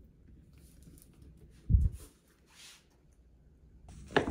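Quiet room with a dull low thump about two seconds in, then a sharp knock near the end as a sneaker is picked up off a wooden floor.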